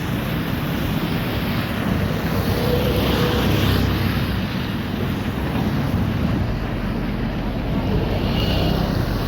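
Wind buffeting the microphone over a steady rushing hiss.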